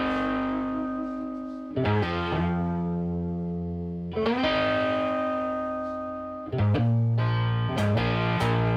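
Background music: distorted electric guitar chords, each struck and left to ring for about two seconds, with quicker strums near the end.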